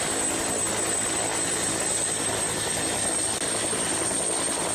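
Helicopter sound effect: steady engine and rotor noise with a thin, high-pitched whine over it.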